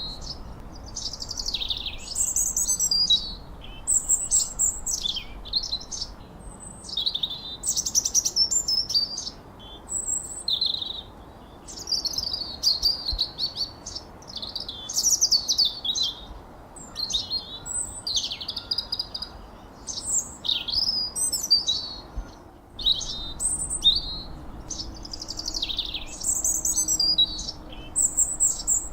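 Songbirds chirping and whistling almost without pause: quick, high chirps and whistled phrases follow one another with only short gaps, over a faint steady background hiss.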